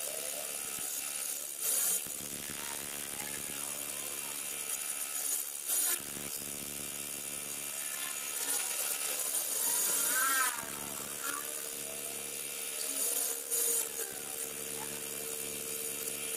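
Manual metal lathe running with a steady gear-and-motor hum while a parting blade is fed into the spinning metal workpiece, the cut coming through as short bursts of harsh scraping every few seconds, the longest just past the middle.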